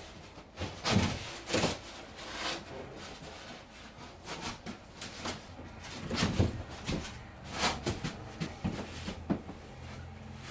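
Irregular knocks, bumps and rubbing scrapes as the last piece of floor insulation board is handled and pushed into place between the floor supports.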